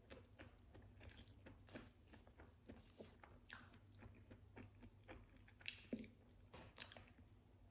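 Close-miked eating: a person biting and chewing food, a faint, irregular run of small crunches and wet clicks.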